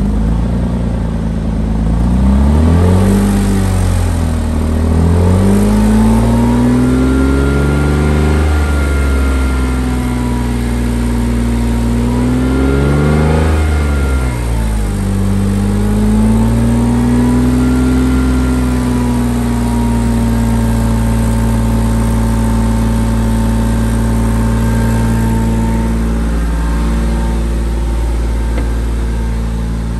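2004 Porsche Boxster S 3.2-litre flat-six running through a freshly installed FabSpeed Maxflo exhaust, heard at the tailpipes. It is revved up and let fall several times, held at raised revs for a few seconds, then settles back to a steady idle a few seconds before the end.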